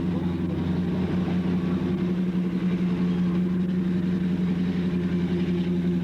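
Motor vehicle engine running steadily with an even, unchanging drone.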